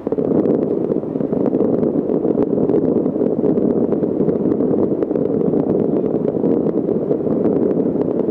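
Dense fireworks barrage: a continuous rumble of many shells bursting together, with rapid crackles and pops throughout. It comes in suddenly and holds steady.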